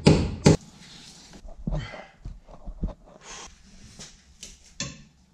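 Two sharp metal knocks in the first half-second, then faint clinks and scrapes of steel tools: a bolt extractor socket being fitted over a rounded rear-subframe bolt.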